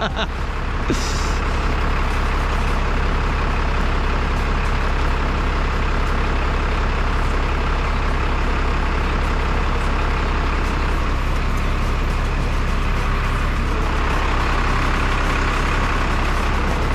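Truck engine running steadily, driving the hydraulic crane mounted on it. A short hiss comes about a second in.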